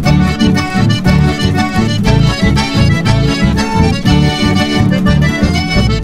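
Instrumental band music led by an accordion playing the melody, over a bass line that pulses in a steady, even beat.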